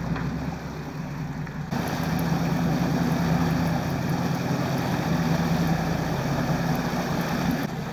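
A boat's engine running steadily, a low even hum under a hiss of wind and water. About two seconds in, the hiss grows louder.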